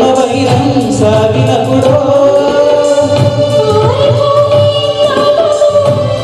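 A man and a woman singing a song as a duet into microphones over backing music with a steady beat, with held, gliding notes; the man sings first and the woman takes over partway through.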